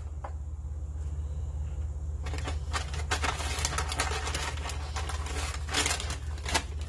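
A plastic snack bag of banana chips crinkling and crackling as it is handled and emptied, starting about two seconds in, over a steady low hum.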